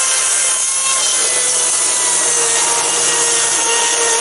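Makita 36-volt battery chainsaw running at a steady high speed, cutting through pine firewood: an even electric motor whine over the rasp of the chain in the wood.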